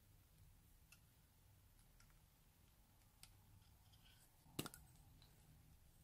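Faint clicks and taps of plastic lipstick tubes and a small plastic spatula being handled, with a sharper double click about four and a half seconds in.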